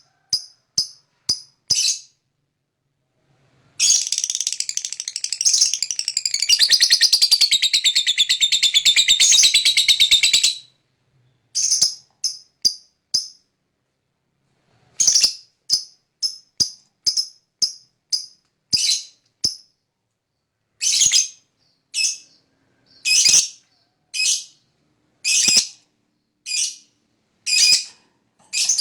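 Lovebird calls: a few short, sharp, high chirps, then a long, rapid rattling trill (the lovebird's "ngekek") lasting about seven seconds, followed by a run of single sharp chirps spaced about a second apart.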